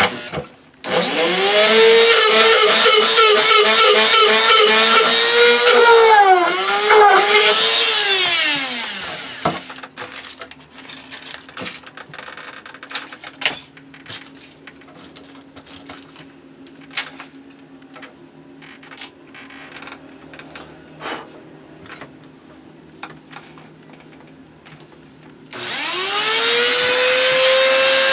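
Rotary tool on a flexible shaft whining at high speed as it drills into a wooden board, its pitch dipping briefly as the bit bites, then winding down. Scattered light clicks and knocks follow, and near the end the tool starts again and spins up to a steady whine.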